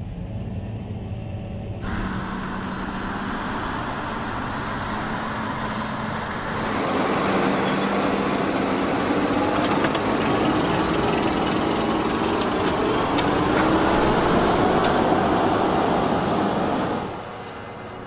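Fendt 939 tractor's engine running under heavy load while pulling a deep plough, heard at first from inside the cab. It then comes from close to the plough as the share cuts and turns the soil, with a louder, fuller sound for most of the second half.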